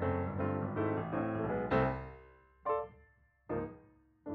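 Outro piano music: a run of notes that dies away, then two separate chords about a second apart, each ringing out and fading.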